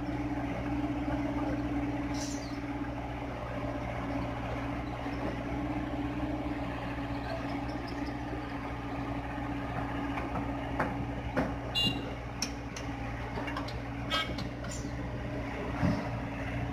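Hyundai excavator's diesel engine running at a steady pitch, with a few short clicks and knocks in the second half.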